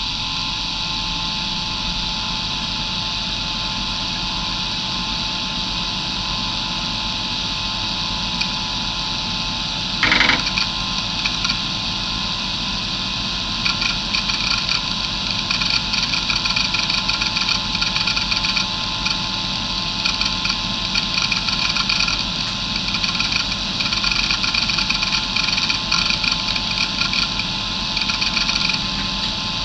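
Areal Technology MD2085 2.5-inch hard drive with glass platters, spinning at about 3000 rpm: a steady whine over a constant hum. There is a short burst about ten seconds in. From about thirteen seconds on comes a rapid, irregular chatter of head seeks as the drive is read while Windows 95 boots.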